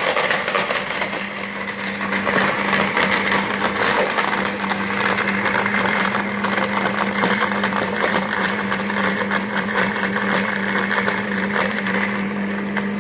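KitchenAid K150 blender running steadily, crushing ice into shaved ice, its motor hum under a constant crackle of ice against the jar.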